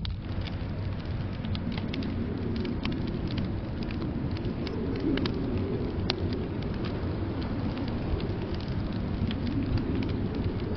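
Wood fire crackling in a fireplace, with irregular small pops and snaps, over a steady low rumble of blizzard wind.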